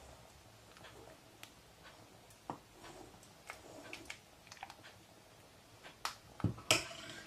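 Ladle scooping soup from a pot into a white ceramic bowl: scattered light clinks and knocks of the ladle against the pot rim and bowl, the loudest few near the end.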